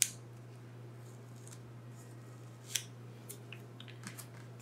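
Small roll of PET tape being handled and unrolled by hand, with sharp crackles and clicks of the plastic: one at the start, another about three seconds in, then a few faint ticks.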